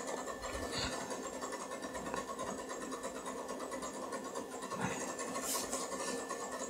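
1999 iMac G3's internal drives whirring with fast, scratchy ticking while the Linux installer loads from CD, with a couple of brief clicks.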